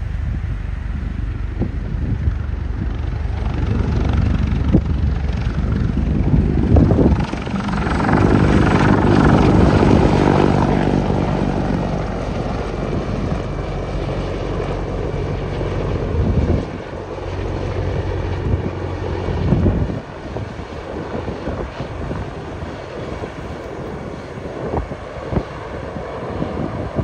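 Heavy-lift CH-53-type military helicopter flying past: steady rotor beat and engine noise that swells to its loudest about eight to eleven seconds in, then fades as it flies away.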